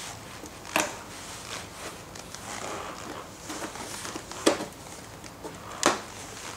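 Plastic trim clips being pried out of the rear fender of a Honda Lead 50/100 scooter with a small hand tool: three sharp snaps a few seconds apart, with soft handling noise from gloved hands between them.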